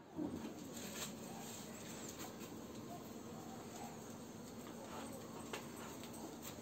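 Faint outdoor ambience with a low steady hum and a few soft clicks.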